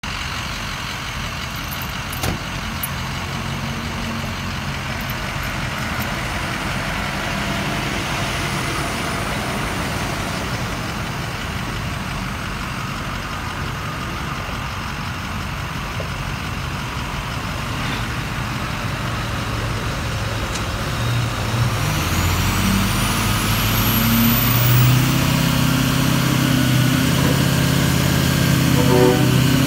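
Steady traffic and wet-road noise, then about two-thirds of the way in a truck engine comes up and grows louder and steadier, the sound of the small wrecker taking the strain of a loaded 17-ton semi. A brief high rising whistle sounds as the engine comes up.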